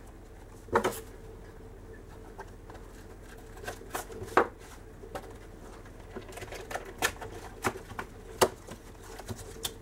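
Irregular sharp clicks and taps of a plastic label tape cassette and its packaging being handled, the loudest about four seconds in.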